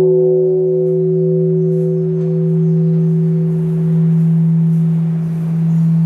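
Large bronze Japanese temple bell (bonshō) ringing on after a strike from its hanging wooden log. Its deep hum slowly swells and ebbs while the higher overtones fade away. The sound cuts off suddenly at the end.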